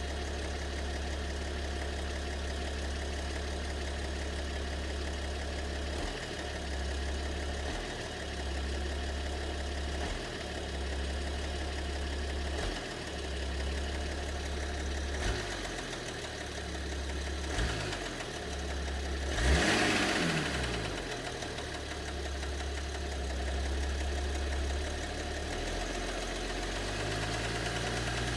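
BMW 730d's M57 straight-six diesel engine idling with the intermittent knock its owner cannot identify, which he thinks may involve one or two cylinders. A short, louder noise comes about 20 seconds in, and the engine speed rises a little near the end.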